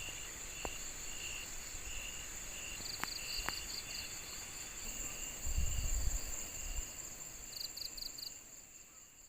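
Crickets and other insects chirping in short repeated pulses over a steady high-pitched insect drone, with a brief low rumble about five and a half seconds in; the sound fades out near the end.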